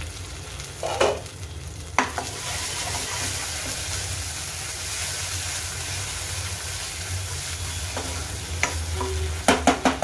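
Ground onion-coconut masala paste sizzling in oil in a nonstick kadhai as a spatula stirs and scrapes it through. There are a few sharp knocks about a second in, and a quick run of them near the end.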